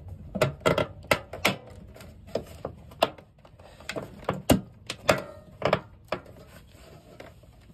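Glass-window dryer door assembly being pressed and knocked by hand to snap it into place: an irregular run of sharp clicks and knocks that thins out near the end. The part is not yet seating properly.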